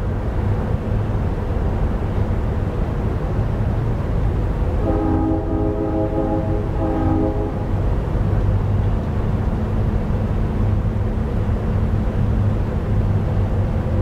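Synthesized recreation of a distant Nathan P3 three-chime train horn: one long blast about five seconds in, followed at once by a short one, with reverb, over a steady low rumble of background noise.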